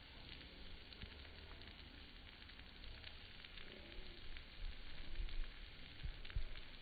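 Lawn sprinkler's water spray making a steady, crackling hiss, with a few dull low thumps in the second half.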